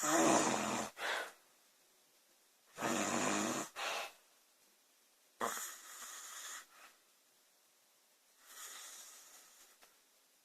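A woman snoring, a snore about every three seconds. The first two are loud, reach down low and are each followed by a short second breath; the later ones are weaker, and the last is only a faint breath.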